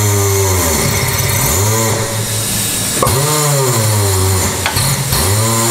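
Coats tire changer's electric turntable motor running in short bursts: it spins up with a rising whine, runs a second or two and stops, about three times, as a tire is worked onto the rim.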